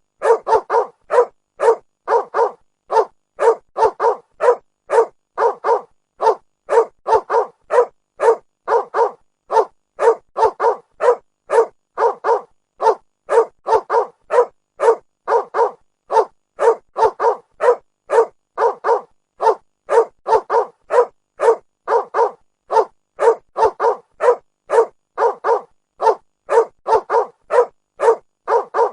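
A dog barking in a fast, steady series, about two to three sharp barks a second in short runs of three or four, with no let-up.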